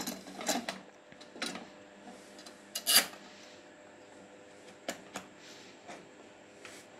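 Scattered metallic clicks and knocks as the ring clamp of a Pentair Challenger pool pump is slid back around the housing and fitted, the loudest knock about three seconds in.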